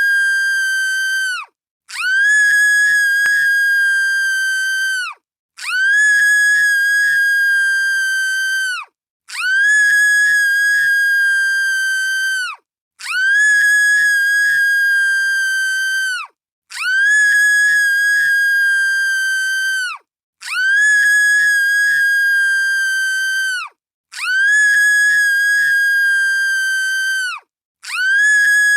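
A girl's shrill, high-pitched scream, repeated over and over as an identical loop. Each scream holds one steady pitch for about three and a half seconds, then drops off, with a brief gap before the next; about eight repeats.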